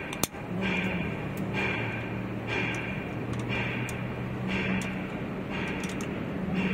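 Socket ratchet clicking in regular strokes, about one a second, as an injector hold-down bolt on a diesel cylinder head is tightened. A steady low hum runs underneath.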